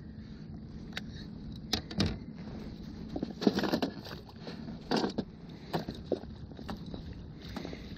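Scattered splashes and light knocks as a landing net is worked in the water beside an inflatable fishing boat, over steady lapping water.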